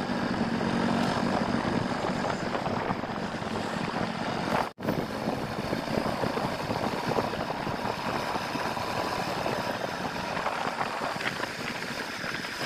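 TVS Apache motorcycle being ridden: engine running with steady road and traffic noise. There is a brief dropout about five seconds in.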